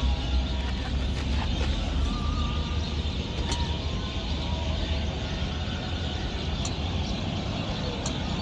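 Steady low vehicle rumble with general background noise, heaviest in the first few seconds and easing after that, with a few faint clicks.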